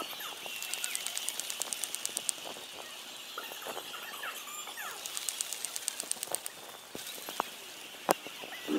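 Stadium crowd noise, a steady hubbub, with two runs of rapid, rhythmic high clicking at about eight a second, one in the first two seconds and one in the middle. There is a single sharp crack near the end.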